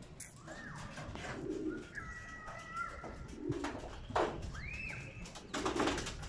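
Domestic pigeons cooing: about three low coos spaced a couple of seconds apart, with higher arching chirps in between.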